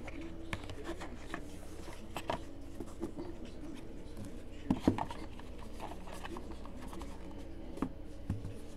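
Hands handling a stack of football trading cards and their packaging: scattered small clicks and rustles, with a couple of sharper clicks about five seconds in.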